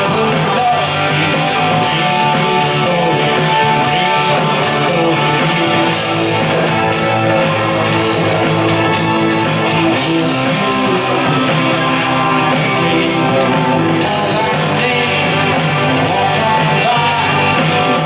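Live rock band playing an 80s cover song through a PA, with electric guitar strumming over bass, loud and steady.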